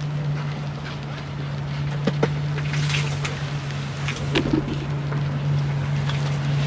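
A steady low mechanical hum, like a small motor running, with a few light clicks about two seconds in and soft knocks a little past four seconds.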